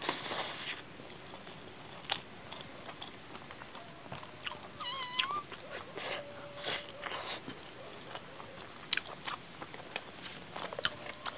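Close-up chewing and mouth clicks of someone eating rice and chicken curry by hand. About halfway through, a short, wavering animal call comes in, followed by a lower steady note.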